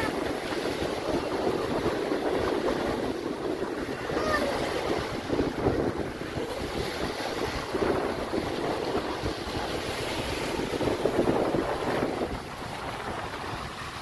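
Small waves breaking and washing up on a sandy shore in a continuous surging wash, with wind buffeting the microphone.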